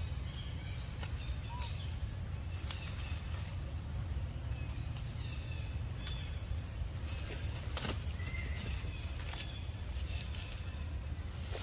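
Outdoor ambience among dry leaves: a constant low wind rumble on the microphone under a steady high-pitched hum, with scattered clicks and rustles and a few faint short chirps.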